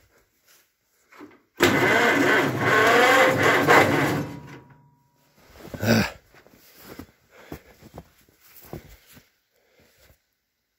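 John Deere 420 crawler's two-cylinder engine being cranked over for about two and a half seconds, then stopping without running on: it doesn't start. A single sharp knock follows a couple of seconds later.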